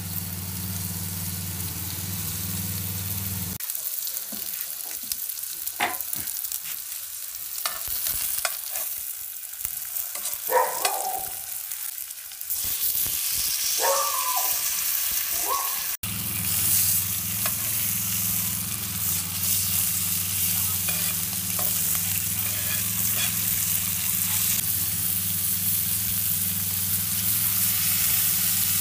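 Steak, sliced onions and butter sizzling steadily in a steel pan over a charcoal grill. A few short scraping sounds from a utensil on the pan come partway through.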